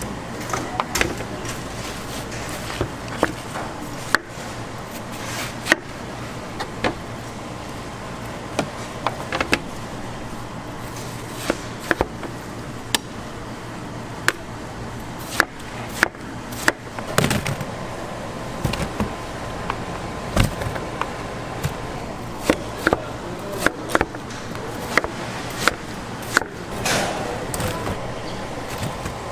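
Kitchen knife chopping fruit on a cutting board: irregular sharp knocks, roughly one a second, some in quick pairs, over a steady background hum.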